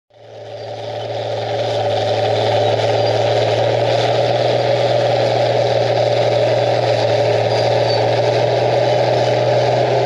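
Crawler bulldozer's engine running steadily under load as it pushes clay, with a constant low drone. It fades in over the first couple of seconds.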